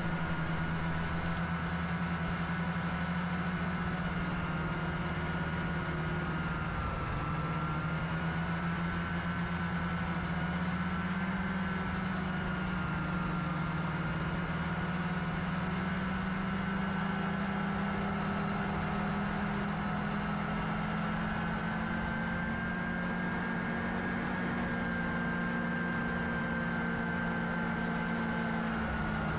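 Snowmobile engine running steadily at trail speed, heard from on board the sled, its note dipping slightly and rising again with small throttle changes. A thin high whine runs along with it.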